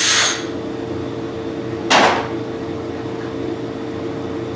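Compressed-air blow gun hissing: a blast ends just after the start, and one short blast follows about two seconds in, clearing aluminium chips from around the end mill. Under it the milling machine runs with a steady hum.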